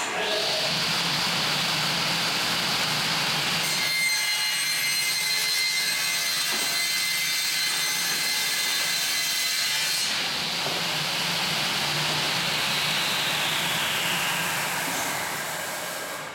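Elcon vertical panel saw starting up and cutting through an OSB sheet. For about six seconds in the middle the cut adds a high steady ringing tone. The blade then runs down, its pitch slowly sinking and fading near the end.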